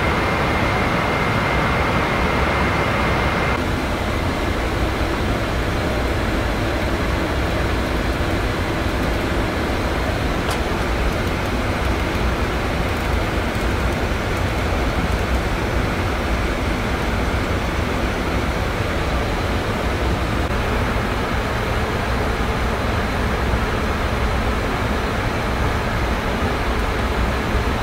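Steady rushing background noise on a Boeing 787 flight deck, the roar of air conditioning and airflow. A faint high whine stops abruptly about three and a half seconds in, and there is a single faint click about ten seconds in.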